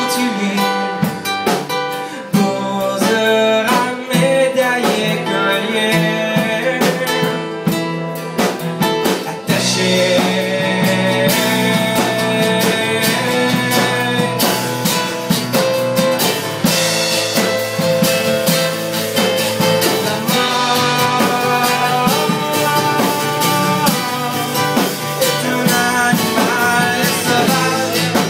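A small band playing live: a strummed acoustic guitar and a second guitar with drums, under a sung male lead vocal. The music grows fuller and louder about nine and a half seconds in.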